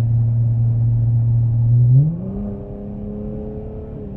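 A Dodge Challenger GT's 3.6-litre Pentastar V6, fitted with a ported throttle body, droning steadily with road noise inside the cabin while driving. About two seconds in, the drone quickly steps up in pitch and gets quieter, then holds steady.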